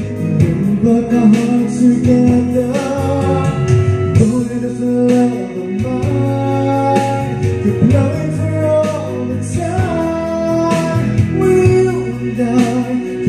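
A karaoke song with singing over guitar accompaniment, played through a Platinum Kapitan 2 DVD karaoke player.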